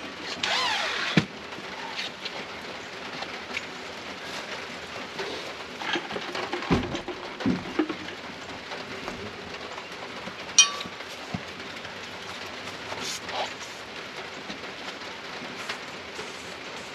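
Steady rain falling, with scattered knocks and clinks of heavy metal bulldozer parts being handled and fitted; a sharp click about ten and a half seconds in is the loudest.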